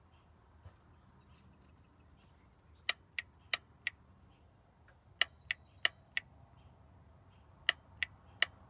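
Torque converter clutch lockup solenoid in a drained GM 200-4R transmission clicking sharply as 12-volt power is applied and released at its pigtail connector. There are eleven quick clicks in three short runs, a sign that the solenoid is working.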